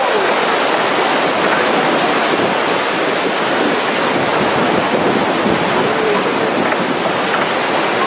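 River whitewater rushing and splashing around a raft as it runs a rapid: a loud, steady noise of churning water.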